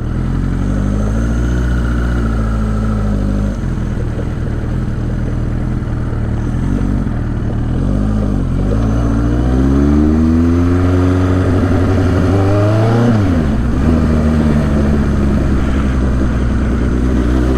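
1983 Suzuki GS1100E's air-cooled inline-four engine pulling as the motorcycle is ridden and accelerated, its pitch climbing and then dropping back twice, about three and a half seconds in and again about thirteen seconds in, as it is shifted or rolled off.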